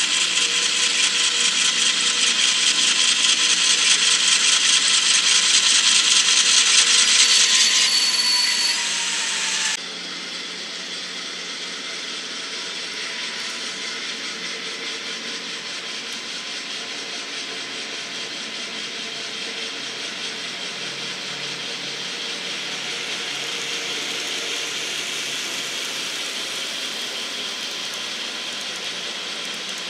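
N-scale model trains running on the layout track: a fast, rattling whir of small motors and wheels on rail. It is loud at first, then drops suddenly to a quieter steady run about ten seconds in.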